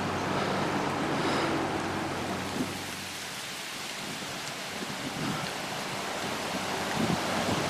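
Riding lawnmower engulfed in flames, the fire burning hard with a steady rushing noise.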